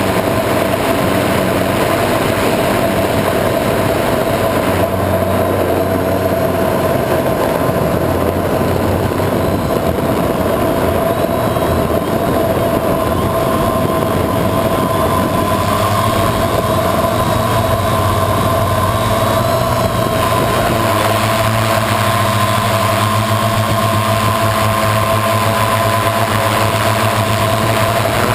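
Multirotor drone's electric motors and propellers whining steadily in flight, picked up by the onboard camera, over a rushing noise of air. The tone shifts slightly about halfway through.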